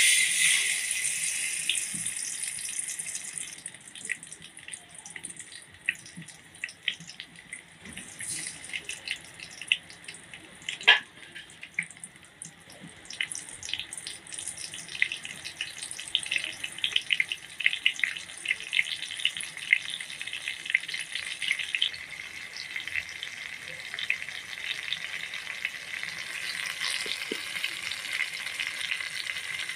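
Tandoori-marinated chicken leg pieces sizzling in hot oil in a steel kadai: a loud hiss as they go into the oil, fading over a few seconds, then a crackle of spitting pops that grows busier after about twelve seconds.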